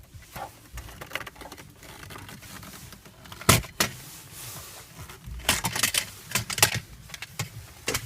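Sharp plastic clicks and rattles of centre-console trim being handled and pried loose around the gear lever, a single sharp snap about three and a half seconds in and a run of clicks a couple of seconds later.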